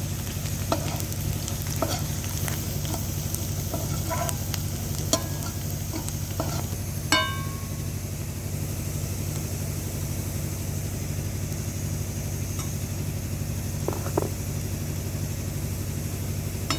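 Food sizzling in a frying pan as it is stirred, with scattered clicks of the utensil against the pan and one ringing metal clink about seven seconds in. A steady low hum runs underneath.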